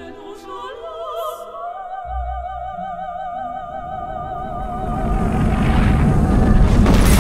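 Operatic singing with wide vibrato over music, joined about two seconds in by a deep rumble that swells into a loud rushing blast toward the end: the film sound of an explosion throwing people through the air in slow motion.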